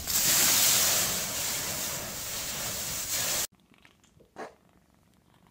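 Dry autumn leaves in a deep pile rustling and crunching loudly as they are thrashed through, cutting off suddenly about three and a half seconds in.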